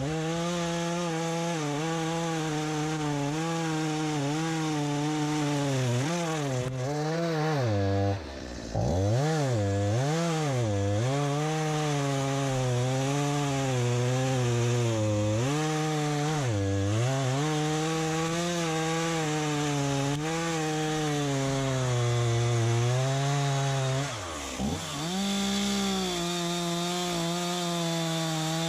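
STIHL MS251C two-stroke chainsaw at high revs cutting through a log. Its engine pitch dips and recovers over and over as the chain loads up in the wood. The throttle is briefly let off about eight seconds in and again near the end.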